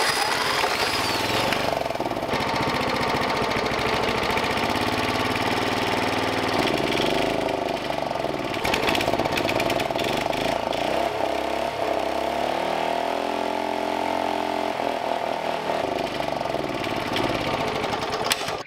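Small single-cylinder lawnmower engine running, its speed rising and falling several times.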